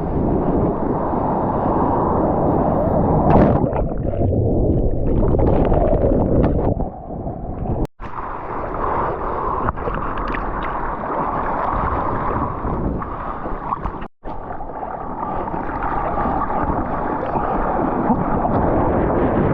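Loud, muffled rushing and churning of surf and water close around a GoPro in the waves. The sound cuts out completely for an instant twice, about eight and fourteen seconds in.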